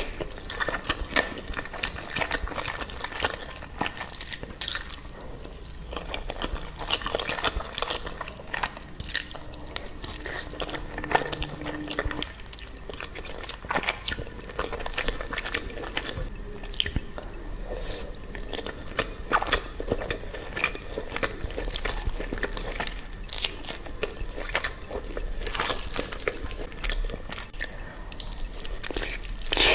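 Close-miked ASMR eating of creamy cheese pasta: wet chewing and mouth smacks with many short sharp clicks, one after another.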